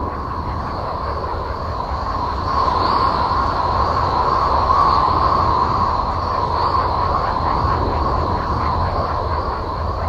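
Space 'sounds of Uranus' drone, presented as a NASA Voyager recording: a continuous rumbling, hissing wash with a steady whistling tone in the middle and a fainter high one above. It grows a little louder about two and a half seconds in, then eases back.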